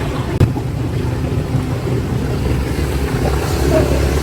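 Steady low vehicle engine and road rumble with wind buffeting the microphone, from a moving vehicle. A single sharp knock comes about half a second in.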